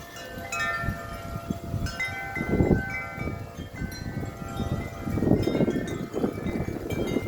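Wind chimes ringing in strong wind, many overlapping chime tones struck again and again by the gusts. Gusts rumble on the microphone, loudest about two and a half seconds in and again around five to six seconds in.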